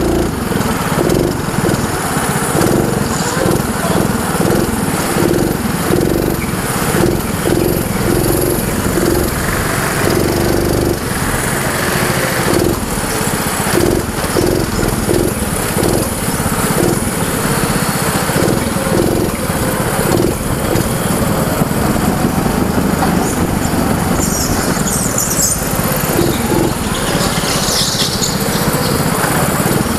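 A junior go-kart's small engine running close to the microphone, pulsing as it accelerates and backs off through the corners of a lap. Brief high tyre squeals come near the end.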